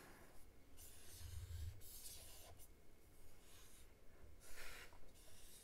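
Fine paintbrush stroking alcohol ink onto Grafix Durabright polypropylene film: about five faint, brief swishes of bristles on the slick surface.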